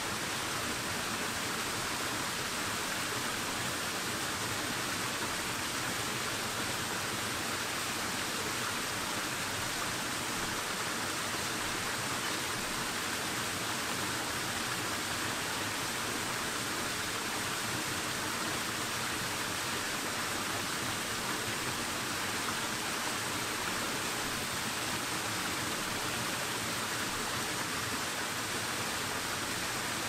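Small freshwater stream cascade splashing over rocks into a pool: a steady, even rush of water.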